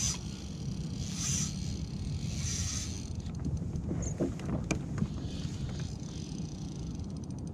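A hooked flathead being played beside a fishing kayak: a few short splashes at the surface and some clicks and knocks from the tackle and hull over a steady low rumble.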